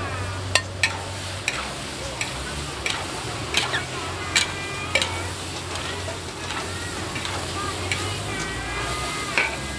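Two metal spatulas scraping and clanking against a large steel wok as long beans and seafood are stir-fried in curry paste, with the food sizzling. The sharp clacks come irregularly, about ten in all, mostly in the first half.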